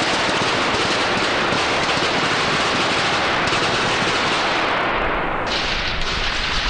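Firecrackers packed on the Scoppio del Carro cart going off in a dense, rapid crackle like continuous machine-gun fire, thinning briefly about five seconds in.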